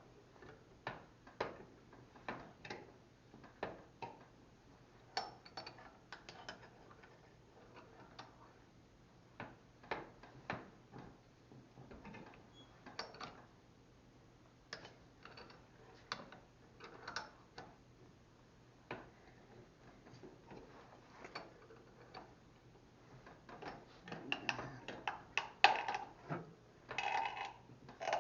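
Scattered metal clicks and clanks from a bench vise being worked, pinching a notched steel pipe at several angles to bend it round. The knocks come at uneven intervals and grow busier and louder near the end.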